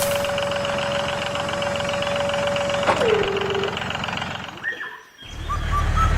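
A small motor whines at a steady pitch, then after a sharp click its pitch drops and it winds down to a stop. Near the end a low, pulsing engine-like rumble starts.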